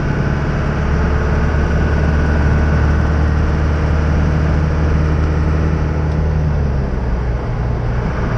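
Cab interior of an old bullnose Ford pickup under way: the engine drones steadily under road and tyre noise, then eases off about seven seconds in.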